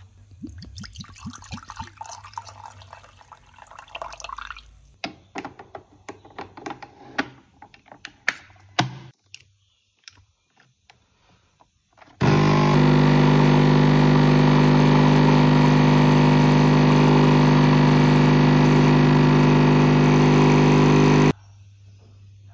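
Nescafé Dolce Gusto capsule coffee machine brewing: its pump buzzes loudly and steadily for about nine seconds, starting and cutting off abruptly. Before that, scattered clicks and light rustling from handling a small glass bottle and its cap.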